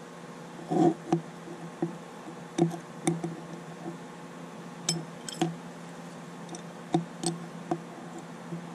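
Steel hand wrenches clinking against a choke cable's threaded fitting as a 16 mm open-end wrench tightens the nut while an adjustable wrench holds the fitting: a string of short, irregular metallic clicks, about eight in all.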